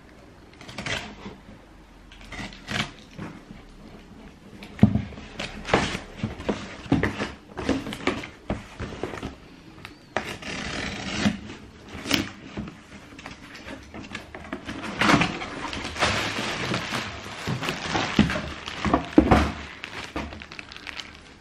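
Handling and unpacking a parcel of trainers: scattered knocks and clunks of cardboard and shoe boxes being moved, with stretches of crinkling plastic packaging, loudest about ten seconds in and again from about fifteen to seventeen seconds.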